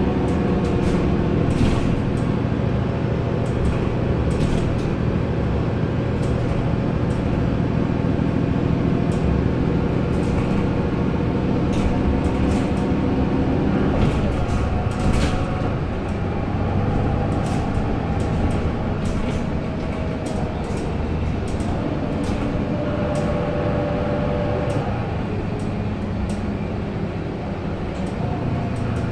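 Mercedes-Benz O530 Citaro city bus heard from inside the passenger cabin while driving: steady diesel engine and drivetrain drone with road noise and scattered clicks and rattles. The drone's pitch changes about halfway through.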